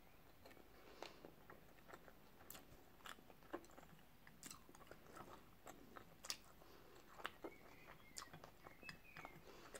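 Faint chewing of a mouthful of sushi, with scattered small clicks from the mouth and the chopsticks.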